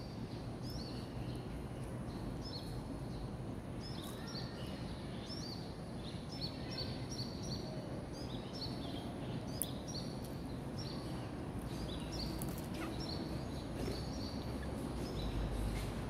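Small birds chirping, a steady string of short high calls repeating, over a constant low outdoor hum. A low rumble grows near the end.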